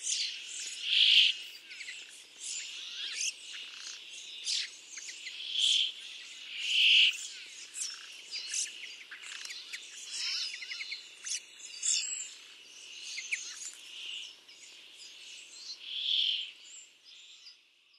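Male brambling singing its plain breeding-season song: a drawn-out buzzy 'dzweee' note, repeated every few seconds. Short chirps come in between.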